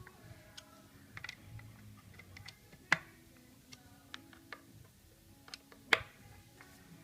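Scattered small clicks and knocks of tools and parts being handled, with two sharp clacks about three and six seconds in, over faint background music.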